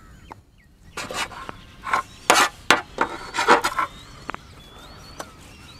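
Knife strokes on a wooden chopping board, about eight quick scraping cuts between one and four seconds in, with birds chirping faintly.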